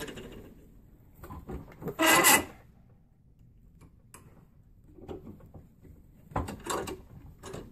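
Rubbing and scraping of braiding strands being handled at a small bench vise, with a short, loud scrape about two seconds in and another run of rubbing near the end.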